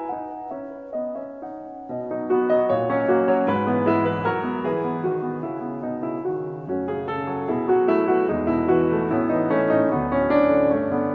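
Background instrumental music, growing louder and fuller with a lower part about two seconds in.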